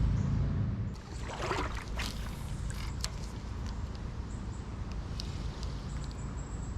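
Fishing tackle being worked: a low rumble in the first second, then a brief swish about a second and a half in, like a rod being cast. A few light clicks follow, like a spinning reel's bail and handle.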